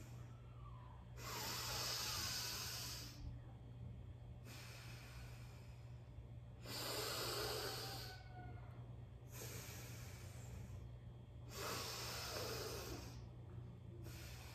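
Alternate nostril breathing: a woman breathing slowly and audibly through one nostril at a time, each breath about two seconds long. Louder breaths come about every five seconds, with softer ones between, over a faint steady low hum.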